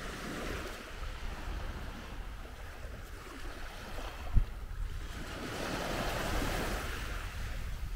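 Small surf waves breaking and washing up the beach, the wash swelling louder in the second half, with wind rumbling on the microphone. A short thump about halfway through.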